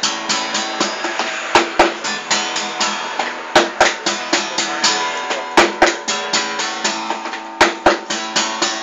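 Acoustic guitar strummed in a steady rhythm, with sharp percussive hits in pairs about every two seconds.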